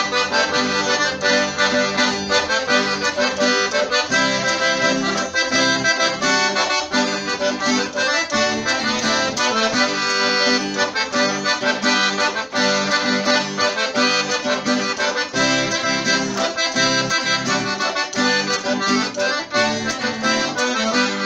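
Accordion (gaita) playing the instrumental introduction of a gaúcho bugio, with full sustained chords and a steady swaying rhythm.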